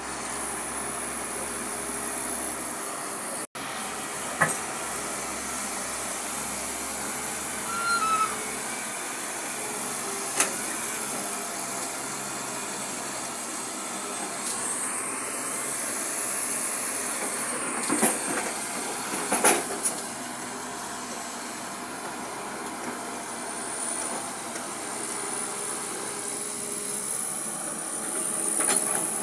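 Excavator running steadily while digging, with a handful of sharp knocks from the machine working and a faint high whine that wavers near the end.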